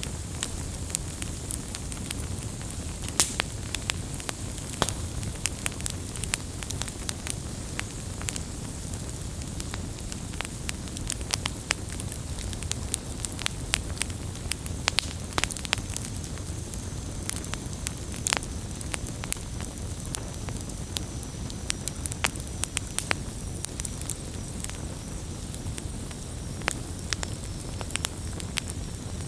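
Campfire burning steadily: wood crackling and popping in frequent irregular sharp snaps over a low, even rush of flame.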